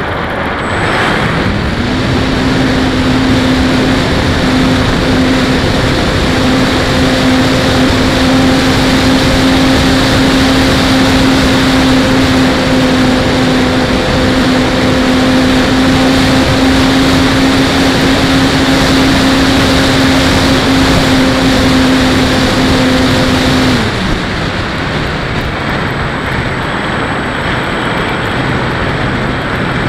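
Onboard sound of a ParkZone T-28 park flyer's electric motor and propeller under a steady rushing of air over the airframe. The motor's hum rises in pitch about a second or two in as the throttle goes up, holds steady in flight, then drops to a lower pitch about 24 seconds in as the throttle is eased back.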